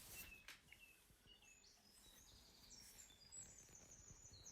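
Faint birdsong: a series of short chirps, then higher, rapid trilled notes from about two seconds in.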